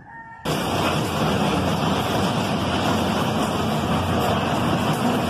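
Tornado wind blowing hard across the microphone: a loud, steady rush of noise that starts suddenly about half a second in.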